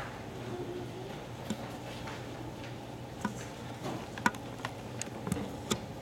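Hushed pause in a school hall just before a string orchestra starts playing: a steady low hum under faint room noise, with about half a dozen small clicks and knocks scattered through it.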